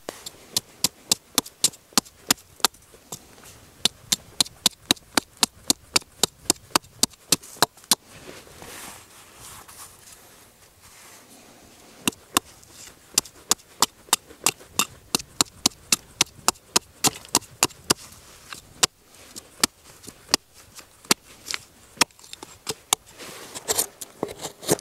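A mallet tapping the back of a small Gränsfors Bruks hand hatchet, about three sharp knocks a second, driving the blade in to split Douglas fir bark off the sapwood. The knocks stop for a few seconds near the middle, then resume, and turn into irregular hatchet cuts into the wood near the end.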